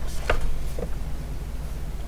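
Two light clicks from handling a small cardboard box and a seam ripper, the sharper one about a third of a second in, over a steady low hum.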